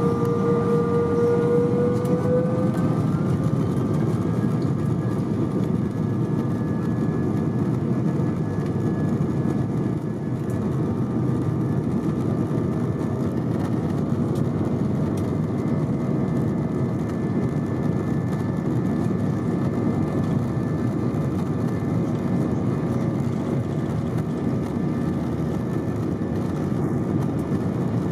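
Airbus A320 jet engines heard from inside the cabin, running at high thrust: a steady dense rumble with whining fan tones that rise slightly over the first few seconds, then hold steady.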